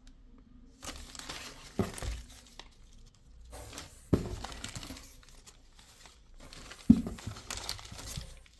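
Crinkling and rustling from small parts and their packaging being handled, with three sharp knocks about two, four and seven seconds in; the last knock is the loudest.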